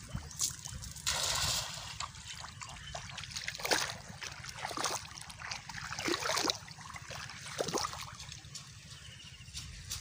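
Shallow muddy water splashing and sloshing as a cast net is thrown in and a man wades. There is a brief louder splash about a second in, then smaller uneven splashes that die down near the end.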